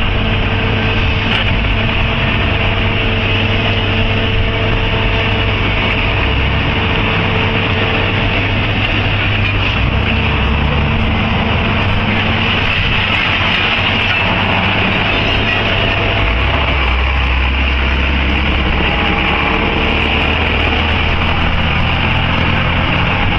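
Heavy construction machinery running steadily: a loud, continuous mechanical noise over a steady low hum.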